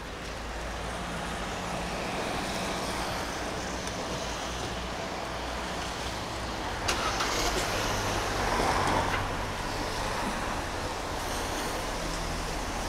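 Street traffic on a rain-wet road: a steady traffic rumble, with a car passing close, loudest from about seven to nine seconds in.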